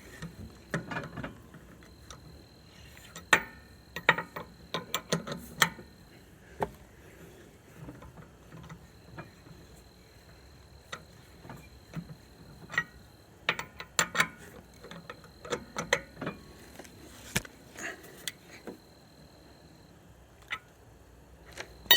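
Lug nuts being run onto the wheel studs and snugged with a tire iron: irregular metallic clicks and taps with short pauses between them.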